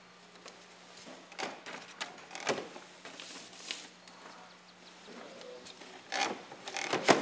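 Handling noises: scattered rustles and knocks as a cardboard box and a paper label sheet are moved about, the loudest knock near the end, over a faint steady hum.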